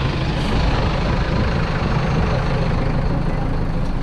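City bus engine idling at a stop, a steady low rumble heard from the open front door and then inside the bus.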